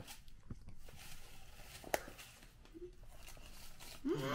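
Paper bag of dry muffin mix crinkling as the mix is shaken out into a metal mixing bowl, with a soft pouring hiss and a couple of sharp clicks of the bag against the bowl. A short pitched vocal sound rises and falls near the end.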